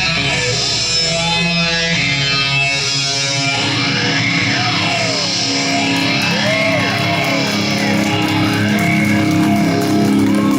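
Rock band playing live, led by distorted electric guitar; from about four seconds in, lead guitar notes bend up and down over steady low held notes.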